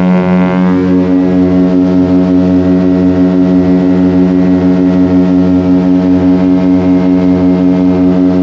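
Small propeller aircraft's engine droning steadily in the cabin in flight. It is one low, unchanging hum with a slight regular throb.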